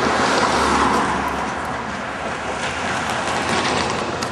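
Road traffic noise: a vehicle going by on the road, its tyre and engine rush loudest about a second in and then easing off.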